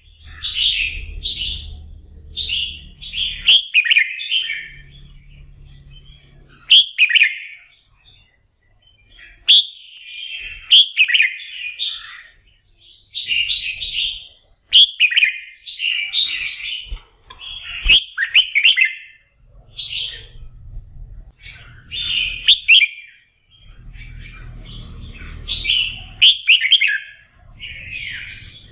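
Red-whiskered bulbul singing in full voice: short, quick warbled phrases, one after another with brief pauses. This is the fired-up 'kích lửa' song used to rouse competition bulbuls into singing.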